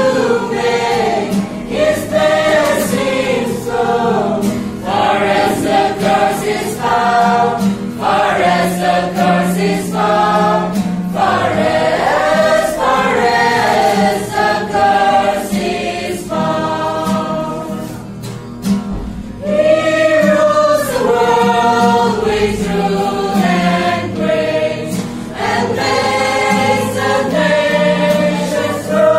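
A small group of mostly female voices singing a Christmas song together, with an acoustic guitar strumming chords underneath. The singing eases briefly about two-thirds of the way through, then comes back in full.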